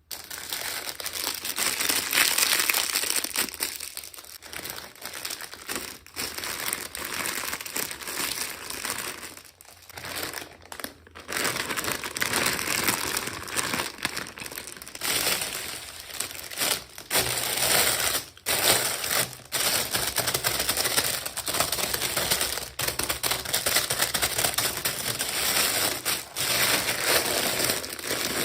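Packaging crinkling and rustling in continuous irregular bursts, broken by a few short pauses, as a miniature toy is unboxed.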